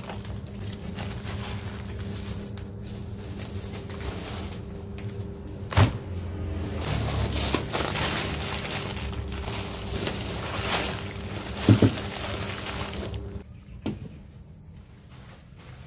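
Plastic bags and packaging rustling and crinkling as groceries are unpacked and handled, with sharp knocks of items being set down about six seconds in and a double knock about twelve seconds in. A steady low hum runs underneath, and things turn quieter near the end.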